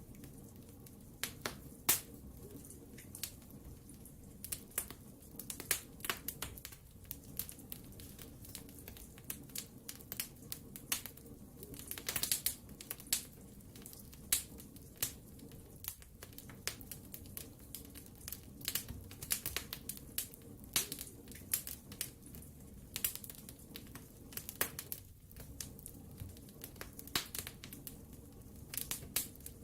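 Wood fire in a fireplace crackling, with frequent irregular sharp pops and snaps over a steady low rumble of the flames.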